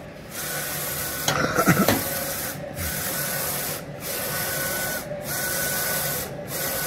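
Roland SP-540V wide-format inkjet printer printing its head-alignment test pattern after a print-head replacement. The print head carriage makes repeated passes about a second long with brief pauses between them, carrying a faint steady whine. A short, louder sliding sound comes about a second and a half in.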